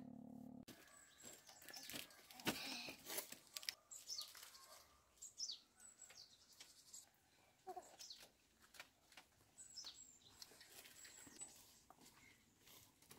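Small birds chirping on and off, short high calls that fall in pitch, over quiet background. A few light knocks and clicks, the sharpest about two and a half seconds in.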